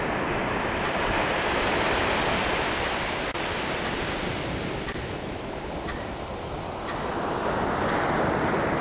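Sea surf breaking and washing up a beach: a steady rushing noise that swells about two seconds in and again near the end, easing off in between.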